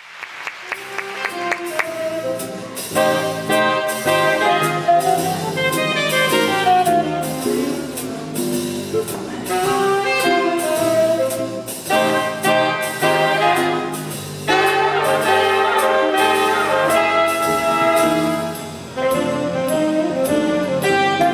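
Swing band playing a bluesy jazz number, with saxophones and brass over a steady drum beat. The music swells up over the first couple of seconds.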